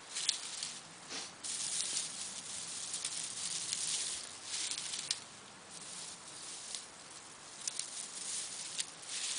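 Small dry twigs and grass rustling and crackling as they are gathered and laid by hand, in uneven spells with a few sharp clicks.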